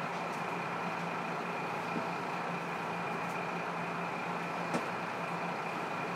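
Diesel engine of a KiHa 54 railcar running steadily, heard from the seat directly above it inside the cabin, as an even hum with a few faint clicks.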